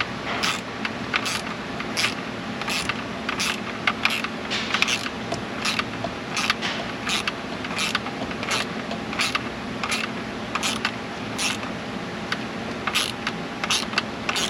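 Hand ratchet clicking in short, regular strokes, about one and a half a second, over a steady low hum.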